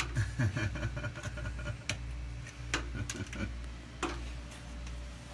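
Scattered, irregular sharp clicks and taps of hand tools on metal while a temperature probe is fitted into a drag car's rear end, over a steady low hum.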